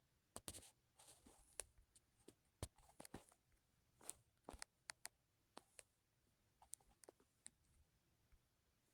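Faint, scattered clicks and taps with a little rustling, a dozen or so spread irregularly over quiet room tone, like light handling noise.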